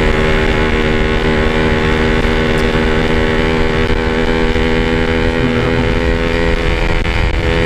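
Yamaha RX-King's 135 cc two-stroke single-cylinder engine running at a steady, even pitch while riding, through a stock-style repacked exhaust.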